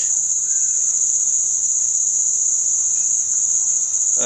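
A steady, shrill, high-pitched drone with no breaks, like a continuous cricket trill, over a faint low electrical hum.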